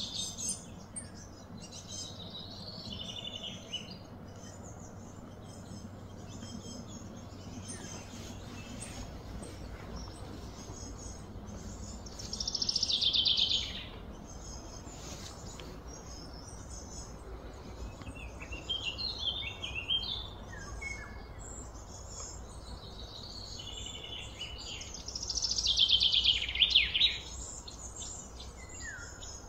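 Birds chirping and calling, with two louder, longer song phrases, one about twelve seconds in and another about twenty-five seconds in, over a steady low background hum.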